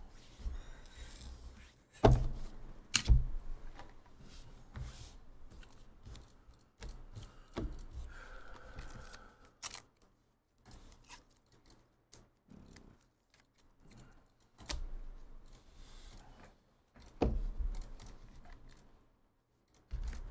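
Scattered desk sounds: a few sharp knocks and thumps, the loudest about two and three seconds in, among lighter clicking from a computer keyboard and mouse.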